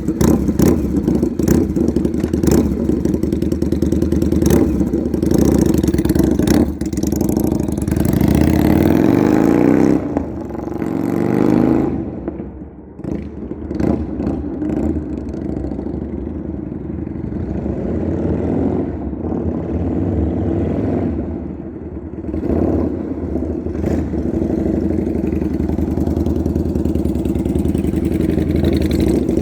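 Yamaha XV750's air-cooled V-twin engine running just after starting, its revs rising and falling several times, with a clear dip in engine speed about twelve seconds in.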